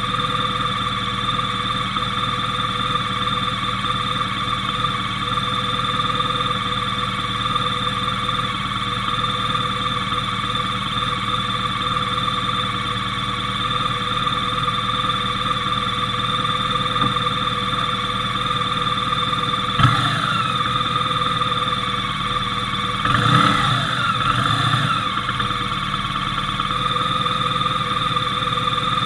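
Motorcycle engine idling steadily while the bike stands still. A single sharp click comes about two-thirds of the way through, and a few seconds later a short stretch where the pitch rises and falls.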